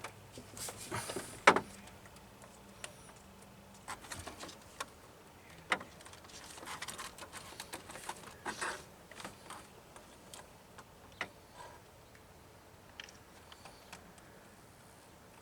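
Hands working a fuel line and its fittings in a cramped engine bay: scattered clicks, taps and scraping of metal parts, with one sharp click about one and a half seconds in.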